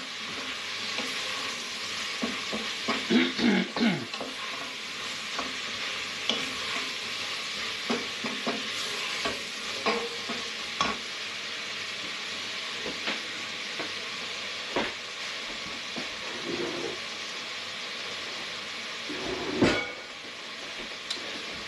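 Chopped onions, leeks, celery and carrots sizzling in butter in a stainless steel pot over a gas flame, with a steady frying hiss. A spoon scrapes and knocks against the pot as the vegetables are stirred, and there is a sharper knock near the end.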